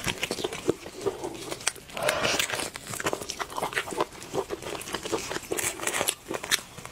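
Close-up eating sounds of a person working through spiced sheep's head meat: wet chewing and lip smacks in irregular sharp clicks, with a denser, wetter stretch about two seconds in.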